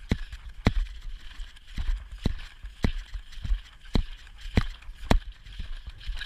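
Ridden horse's hooves on turf at a fast pace, heard from the saddle: a sharp thud with each stride, evenly spaced a bit under two a second, over a low rumble.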